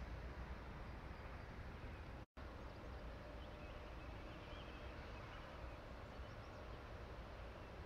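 Faint outdoor ambience: a steady low rumble and hiss, with a few faint bird chirps in the middle. The sound cuts out completely for a moment about two seconds in.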